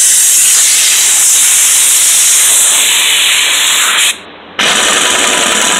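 Pneumatic impact wrench running on the nut of a pit bike's inner rotor: a steady airy hiss for about four seconds, a brief stop, then a second run with rapid hammering. The air supply is running low.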